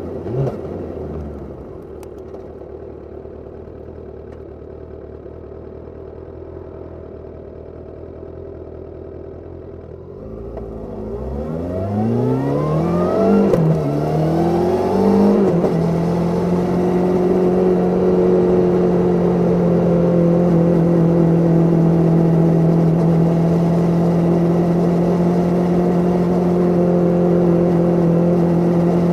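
Suzuki Katana 750's inline-four engine, heard from under the seat. It runs low and steady for about the first third, with a brief blip near the start. Then it accelerates hard: the pitch rises, dips briefly as at a gear change, and rises again. After that it holds a steady, louder note at constant revs.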